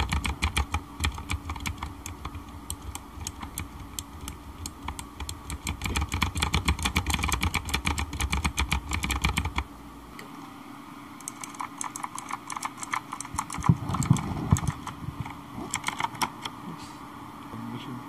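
Rakk Kimat XT.LE mechanical keyboard with blue clicky switches being typed on rapidly: fast runs of crisp key clicks. The clicking eases off about ten seconds in, then picks up again in short runs.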